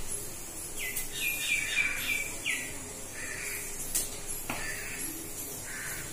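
Birds chirping: a quick run of short, high, falling chirps about a second in, then fainter calls. A few sharp clicks come from a spatula against a steel plate.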